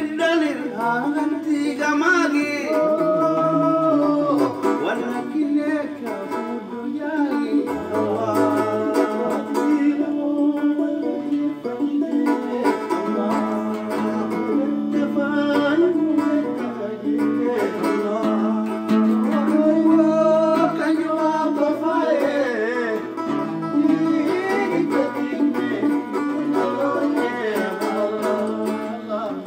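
Nubian song: a man singing over a plucked tanbur (Nubian lyre) and oud.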